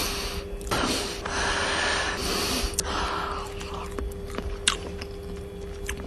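A man chewing loudly with wet, smacking mouth clicks, and a long breath through the nose a second or so in.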